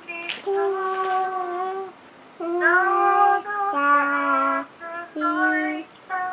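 A high voice singing a slow melody of long held notes, stepping from one pitch to the next with short breaks between them.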